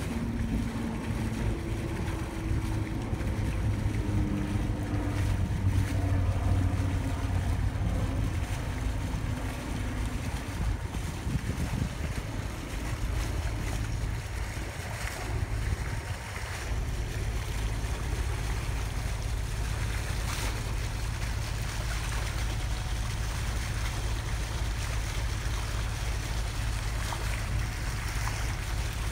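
Boat under way on engine power: a steady low drone, with wind rushing on the microphone. A fainter, wavering higher tone runs over the first ten seconds or so.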